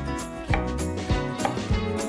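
Background music with steady tones, with a few chef's-knife strikes on a wooden end-grain cutting board as red bell pepper is sliced into strips, the clearest about half a second in.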